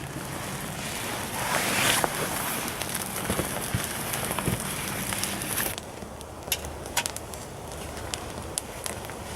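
Campfire crackling, with scattered sharp pops over a steady rushing hiss. The hiss swells briefly about two seconds in and falls away about two-thirds through, leaving the pops clearer.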